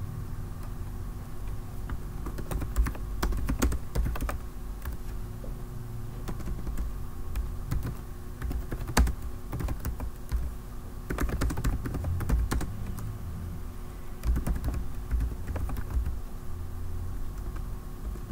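Typing on a computer keyboard: irregular spells of key clicks with short pauses between them, over a low steady hum.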